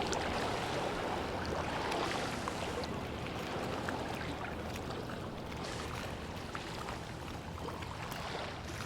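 Sea water sloshing and lapping, with scattered small splashes and clicks over a low steady rumble.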